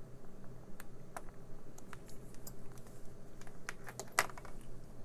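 Irregular small clicks and scrapes of a tiny screwdriver working at a miniature screw in a hearing aid's plastic casing, the loudest a short scrape about four seconds in.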